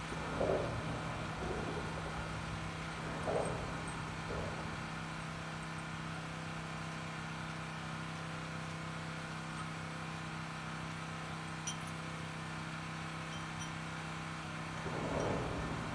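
An engine running steadily at a constant pitch throughout, with a few brief louder noises about half a second and three seconds in and again near the end.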